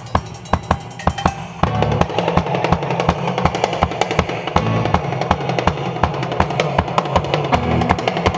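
Live rock band playing, with a Tama drum kit keeping a steady beat on bass drum, snare and cymbals. About a second and a half in, the band comes in louder and fuller with guitars and bass.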